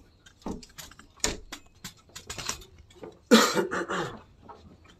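Phone handling noise: scattered clicks and taps against the microphone as the phone is moved, with one louder noisy burst lasting under a second about three and a half seconds in.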